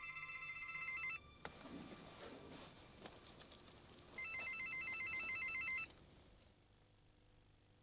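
A phone ringing with an electronic warbling trill: two rings, each about a second and a half long and about three seconds apart, with faint rustling between them.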